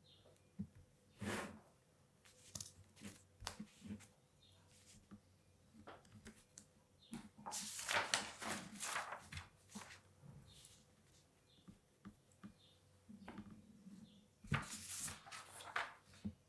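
Paper rustling and being handled on a desk, in short scattered rustles and clicks, with two louder stretches of rustling about eight seconds in and again near the end.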